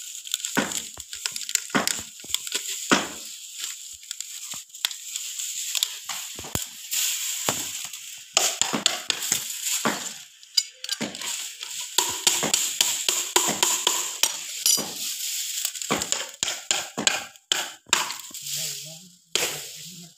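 Dry grass broom stalks rustling and crackling as a bundle is handled and worked into a broom, with many irregular sharp clicks and taps.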